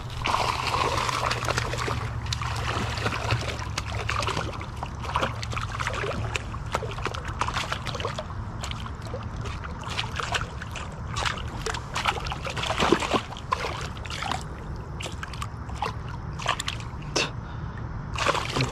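Water splashing and sloshing in many short, irregular bursts as a hooked largemouth bass thrashes at the surface beside the kayak and a hand reaches in to grab its lip.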